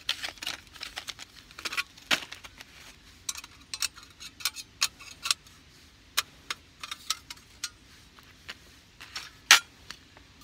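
Metal camp gear being handled: irregular light metallic clinks and clicks, a few a second at times, with one sharper clink near the end.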